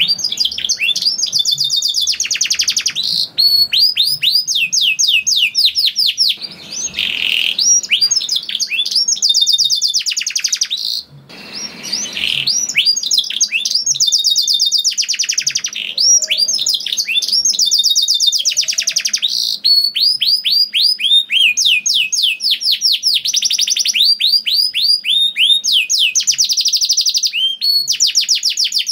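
Domestic canary singing long, fast rolling trills: phrase after phrase of rapid high notes, each sweeping downward, with only short breaks between runs.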